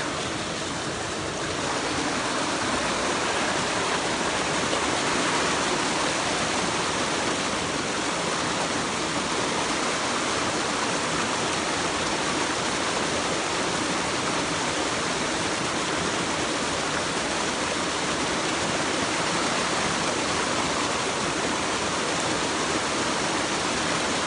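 Mountain stream water rushing steadily over rocks, an even, unbroken rush.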